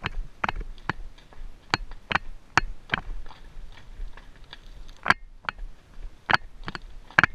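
Shod horse walking over rocky, gravelly ground: irregular sharp clicks of hooves striking stones, about two to three a second, with a brief lull around the middle.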